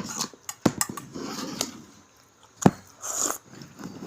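Scattered clicks and knocks of plates and food being handled at a meal, with short bouts of rustling.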